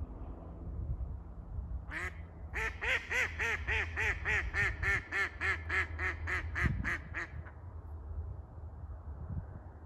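Live hen decoy duck giving an 'osadka', the landing call meant to bring a circling drake down: one call, then a long string of about sixteen quacks, about three a second, that stops about two-thirds of the way through. A low wind rumble runs underneath.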